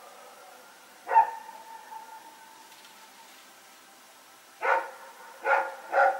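Dog barking: a single bark about a second in, then three quick barks near the end. A faint steady tone lingers for a couple of seconds after the first bark.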